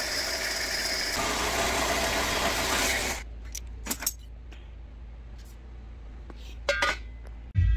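Horizontal metal-cutting band saw cutting through 2-inch 14-gauge steel square tube: a loud rasping cut for about three seconds that stops suddenly as the blade finishes the cut. The saw's motor then keeps running with a low steady hum, with two short knocks later on.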